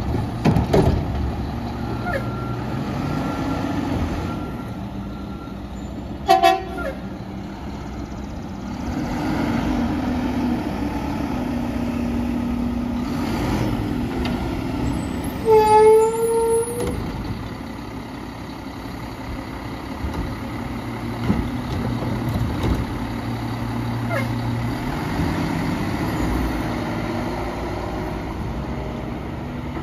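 Mack LEU garbage truck's engine running steadily under hydraulic work as the Curotto-Can arm sets a cart down, then the truck pulls away. A short horn toot sounds about halfway through, with a brief clank a few seconds earlier.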